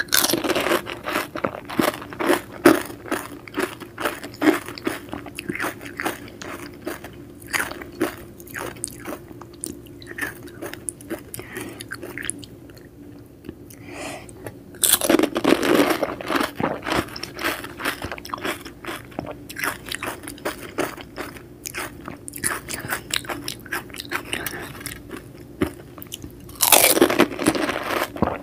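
Pani puri being eaten close to the microphone: a crisp, hollow fried puri filled with spiced water is crunched whole, three times (at the start, about halfway and near the end), with crackly chewing of the puri shells in between.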